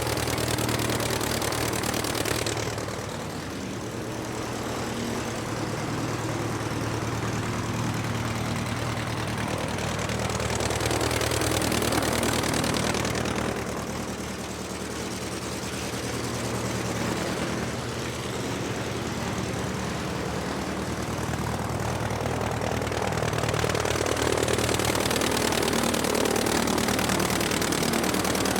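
Aircraft engine running steadily. A brighter, rushing hiss swells in and fades away every ten seconds or so.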